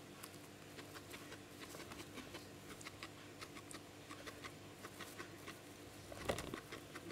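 A guinea pig eating hay: rapid, crisp crunching and rustling of dry hay, several small clicks a second, with one louder, lower rustle about six seconds in.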